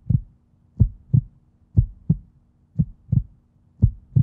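Heartbeat sound: low double thumps in a lub-dub rhythm, about one pair a second, over a faint steady hum.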